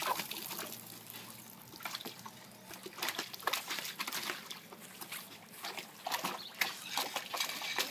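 Water splashing and sloshing in a plastic tub as a puppy steps and paws in it, in irregular splashes that come more often in the second half.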